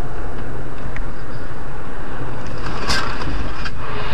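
Steady, loud vehicle noise from engine and road, with a brief noisier burst about three seconds in.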